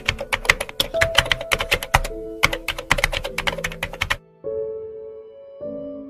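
Keyboard typing sound effect: a rapid run of keystroke clicks that lasts about four seconds and then stops, over soft background music with sustained notes.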